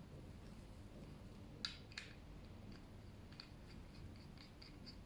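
A connector being fitted to a metal floor stand: two sharp clicks about a second and a half in, then a run of faint light ticks, about four a second.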